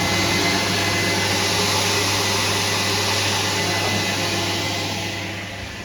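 1985 Kärcher coin-operated car-wash vacuum running with a steady rushing hiss, a low hum and a thin high whistle. It starts to wind down near the end, as its coin timer runs out.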